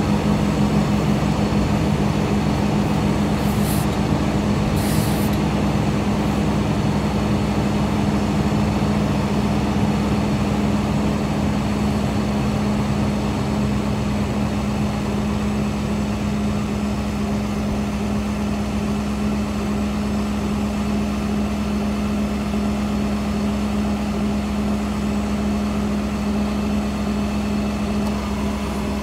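Heavy diesel engine running steadily at a constant speed, with two short hisses of air about four and five seconds in.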